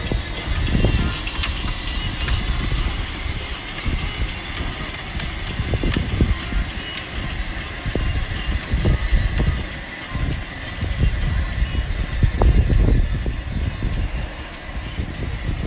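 Battery-powered Barbie Cadillac Escalade EXT ride-on toy car driving along an asphalt street: an uneven low rumble of its plastic wheels on the road with a thin, steady motor whine over it.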